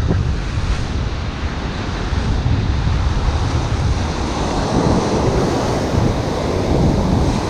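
Ocean surf washing on a beach, with strong wind buffeting the microphone in a low rumble that swells and eases every few seconds.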